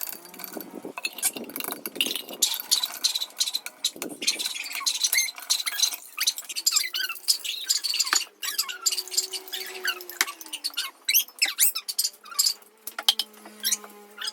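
Rapid clinking and tapping of kitchen utensils and cookware, with a few faint squeaks among the clicks.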